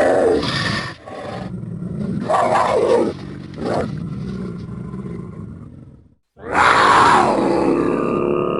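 Cougar sound effects: a string of big-cat roars and growls, several separate calls with a short sharp one about three and a half seconds in, a sudden cut to silence after about six seconds, then another loud roar.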